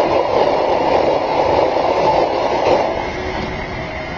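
A 4x4's engine pulling hard under load as the vehicle climbs a steep ramp: a steady drone that eases off about three seconds in as it crests the top.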